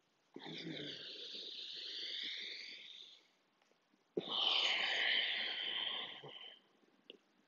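Deep, audible yoga breathing through the throat: one long inhale as the arms rise overhead, a short pause, then one long exhale as the hands come down to the chest.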